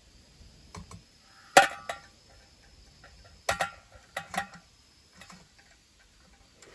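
Popcorn kernels popping inside an antique bed warmer pan over a campfire: irregular sharp pops that ring briefly off the metal, the loudest about one and a half seconds in, with a cluster around three and a half to four and a half seconds.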